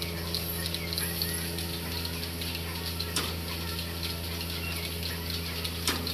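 Milking machine running on a cow: a steady hum with a light hiss of milk and air drawn through the cluster, and two short clicks, one about halfway and one near the end.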